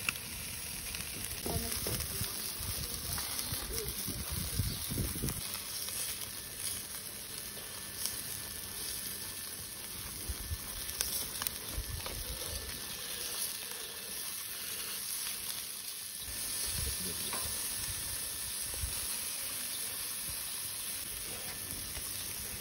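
Marinated chicken on skewers sizzling over a wood and charcoal fire: a steady hiss with scattered sharp crackles, and a low rumble during the first few seconds.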